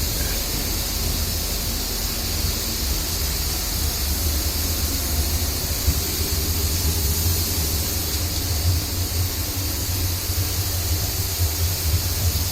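Steady hiss with a low rumble underneath and no distinct events.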